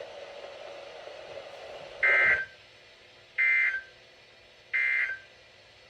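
Three short, identical electronic data bursts about a second and a half apart, from a NOAA Weather Radio broadcast. They are the SAME end-of-message code that closes the required weekly test. A faint steady channel hiss comes before the first burst.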